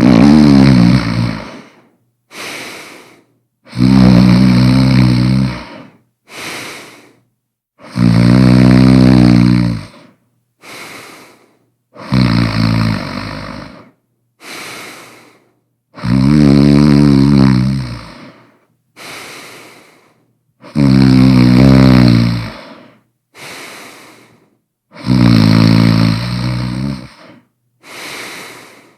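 A person snoring very loudly in a steady rhythm. A long, rasping snore of about two seconds comes roughly every four seconds, and between them comes a shorter, much quieter breath.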